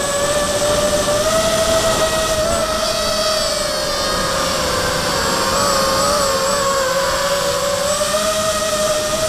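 MXP230 quadcopter's brushless motors and propellers whining in flight, driven by Afro 12A ESCs running BLHeli with OneShot125. The pitch rises and falls with the throttle, dipping in the middle and climbing again near the end.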